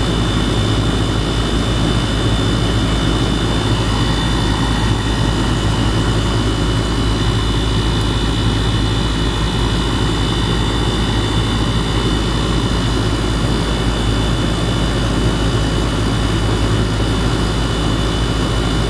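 2018 Goodman 2.5-ton gas pack running steadily in cooling mode, heard up close at the compressor: a constant low compressor hum under the even rush of the condenser fan.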